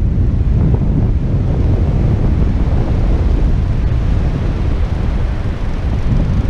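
Wind buffeting the microphone: a loud, steady low rumble with gusty flutter.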